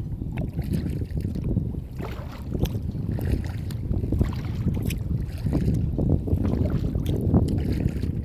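Kayak paddle blades dipping and splashing in repeated strokes, water dripping off them, over a steady rumble of wind buffeting the microphone.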